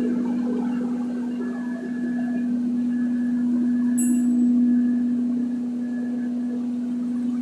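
Belt-driven coriander (dhaniya) pulverizer, with its electric motors and suction blower, running with a steady hum. A brief high click about four seconds in.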